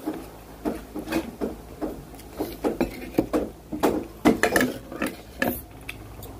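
Close-up mouth sounds of a man chewing rice and fried fish eaten by hand: moist chewing and lip smacks about two or three a second, loudest around four seconds in.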